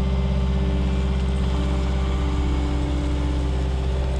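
Diesel engine of heavy construction equipment running steadily at constant speed, with a deep, even tone.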